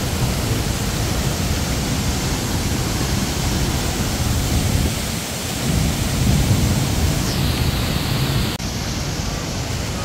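Loud, steady rushing roar of a large waterfall heard from close up, heavy in the low end. The sound's character changes abruptly about eight and a half seconds in.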